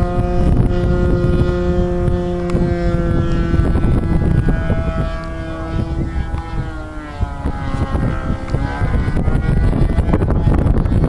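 A model aircraft engine running as the plane flies by, its pitch shifting up and down as it passes, with strong wind buffeting the microphone throughout.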